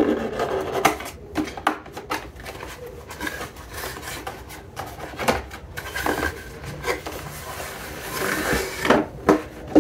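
Cardboard product box being opened and a soft carrying case slid out of it: cardboard rubbing and scraping, with scattered taps and knocks, several sharp knocks near the end.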